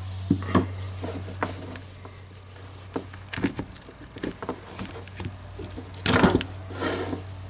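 Short clicks and knocks of a cordless impact wrench's plastic housing and internal parts being handled and pried apart, with a louder rattling scrape about six seconds in, over a steady low hum.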